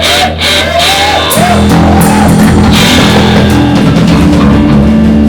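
Loud live rock band: drums, bass and distorted electric guitar. A wavering, swooping tone runs over drum hits at the start, then heavy sustained guitar and bass chords come in about a second and a half in.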